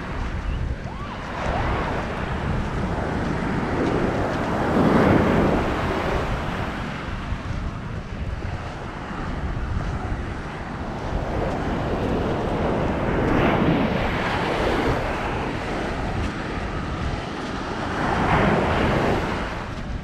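Ocean surf breaking and washing up the beach, swelling louder three times, with wind buffeting the microphone in a steady low rumble.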